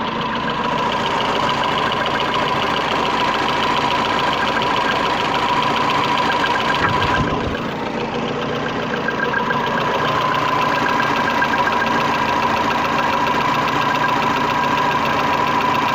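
VAZ-21099 engine idling steadily, with a steady high tone running through it. This is the engine whose owner hears an odd knock now and then and can't explain it.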